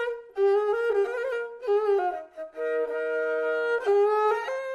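Kyl-kobyz, the Kazakh two-stringed horsehair fiddle, bowed in a solo melody of shifting notes with vibrato, with one long steady note in the middle.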